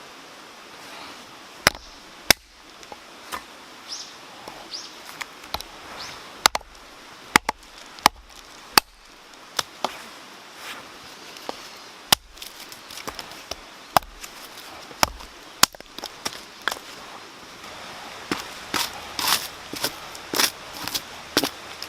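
Irregular sharp snaps and cracks of wood, about a second or two apart, thickening into a quick run of cracks near the end, over a steady background hiss.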